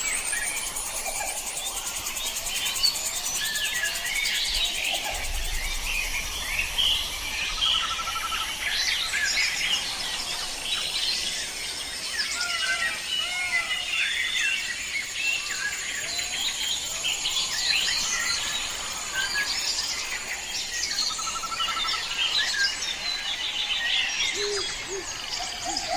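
Many small birds chirping and twittering, short overlapping calls throughout, over a steady high hiss.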